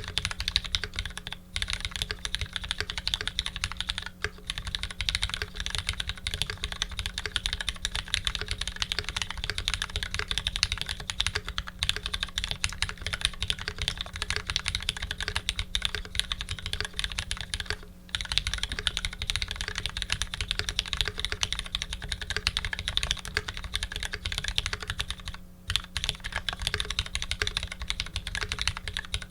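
Fast, continuous typing on a custom Dolinger re mechanical keyboard with lubed Retooled Black linear switches, an aluminium plate and GMK keycaps, broken by a few short pauses.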